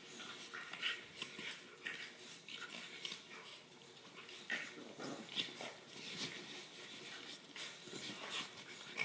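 A boxer puppy and a French bulldog puppy play-fighting on a leather couch: irregular scuffling and snuffling, with a few short high-pitched yips.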